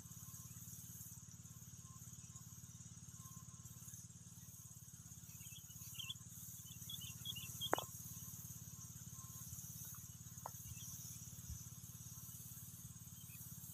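Faint steady hum of a distant engine-driven spray pump running, with a thin high hiss over it. About halfway through come a few short high chirps and a sharp click.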